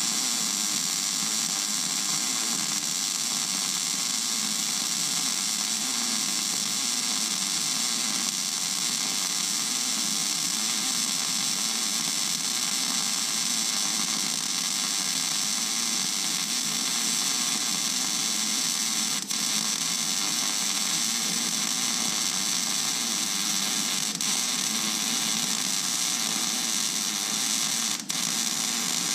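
Wire-feed (MIG) welding arc laying a bead on steel: a steady, continuous crackling hiss, with two very brief breaks in the arc, about two-thirds of the way through and near the end.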